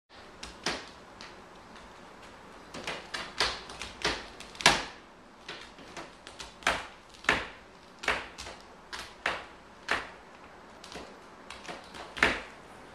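A cat clawing a scratching post: a run of short scratching strokes that come irregularly, often in quick clusters, with the loudest about four and a half seconds in and another near the end.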